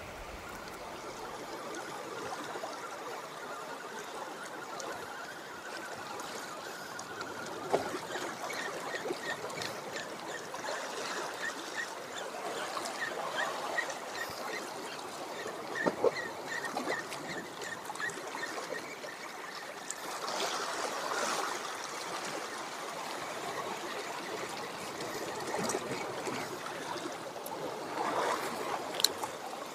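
Small sea waves washing against shoreline rocks, with water trickling among them: a steady wash with a few light knocks.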